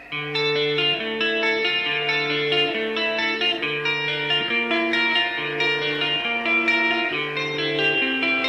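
Music: an electric guitar playing a steady melodic pattern of clear plucked notes, starting abruptly at the beginning.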